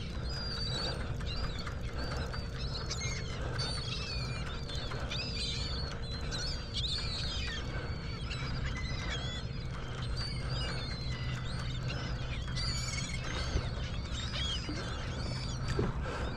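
A flock of seabirds calling: many short, high chirping calls overlapping throughout, over a steady low hum.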